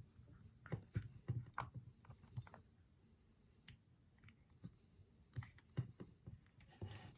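Faint, irregular plastic clicks and taps as an AirPods charging case is pushed into a new protective case, with a cluster about a second in, another around five to six seconds, and a short scrape near the end.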